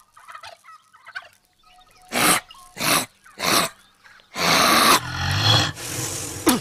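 A man blowing hard through his lips on an arrow: three short, sharp puffs about two-thirds of a second apart, then a longer, louder rushing blow that trails off.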